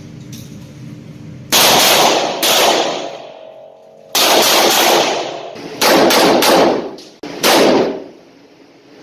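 Pistol shots, about six, fired at irregular intervals over several seconds, each followed by a long echoing tail.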